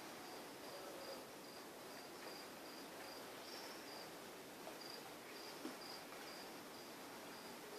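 Crickets chirping faintly, a thin high chirp repeating in short pulses about every half second over a soft steady hiss.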